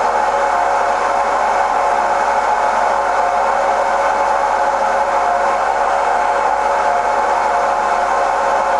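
Bemato FL-2160 CNC lathe running steadily while cutting a thread: an even machine hum with several steady tones and no breaks.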